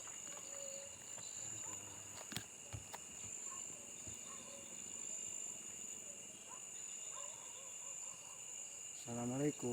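Steady chorus of insects, crickets by their sound, trilling at several high pitches. A few faint sharp clicks come between two and three seconds in.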